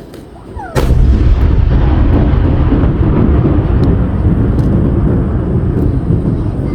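Aerial fireworks: a shell bursts with a sudden loud boom about three-quarters of a second in, followed by a long, continuous low rumble of booms.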